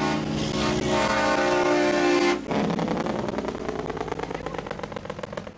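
Semi truck's air horn blowing a steady blast that cuts off about two and a half seconds in. It is followed by the truck's diesel engine pulsing rapidly and fading as it passes.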